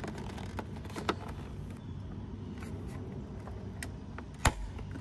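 Small plastic clicks and taps as an aftermarket tail light housing is handled and pressed onto the car body, with one sharp, louder click about four and a half seconds in, over a low steady background hum.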